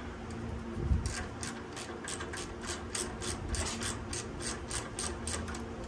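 Hand ratchet wrench clicking as a bolt is worked in short back-and-forth swings, a steady run of sharp clicks about four a second. A knock about a second in, as the tool is set on the bolt, is the loudest sound.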